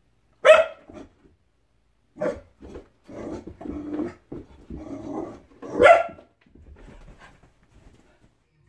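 Australian cattle dog barking at its own reflection in a mirror: a string of sharp barks, the loudest about half a second in and again near six seconds, with quieter barks between.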